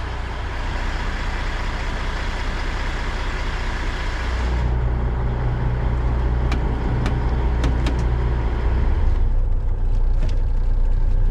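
Vehicle engine running. A steady hiss gives way about four and a half seconds in to a steady low hum, with a few faint clicks.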